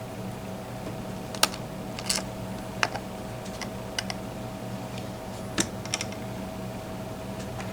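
Scattered small sharp clicks and taps of tiny metal lock pins and parts being handled, about seven over several seconds, over a steady hum.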